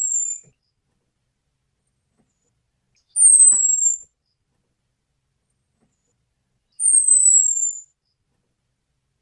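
Orange-headed thrush giving its thin, very high call: a single downward-sliding whistle about a second long, repeated about every three and a half seconds, twice in full with the tail of another at the very start. It is the call used to lure male orange-headed thrushes.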